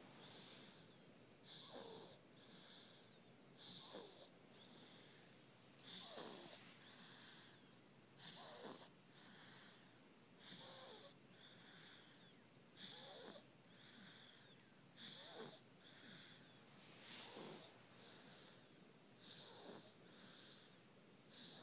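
A sleeping baby snoring faintly, with a wheezy snore on each breath about every two seconds.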